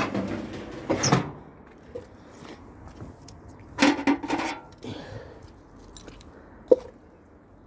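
Scattered knocks and clattering of scrap tumble-dryer parts being handled, with one sharp click near the end.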